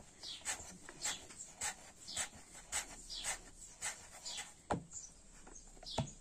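An animal's sound repeating evenly about twice a second, high-pitched, with a couple of soft knocks near the end.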